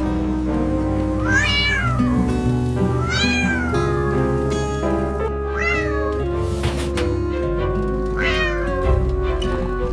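A cat meowing four times over steady background music, each meow rising and falling in pitch.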